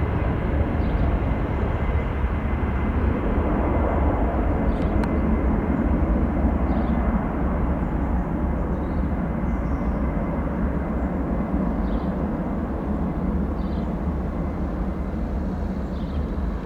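Jet engines of an Airbus A319 airliner rumbling as it climbs away after take-off, slowly fading.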